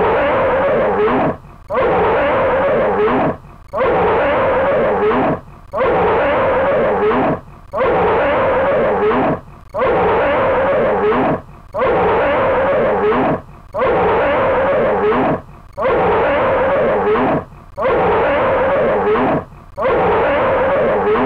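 A bear roaring in pain or frustration, over and over, about one roar every two seconds. Each roar lasts about a second and a half and has a wavering pitch.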